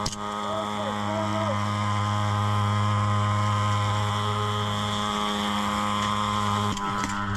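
Background music with a steady, held low drone.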